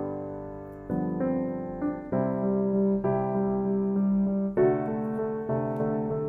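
Background piano music, a gentle run of chords with a new note or chord every second or so.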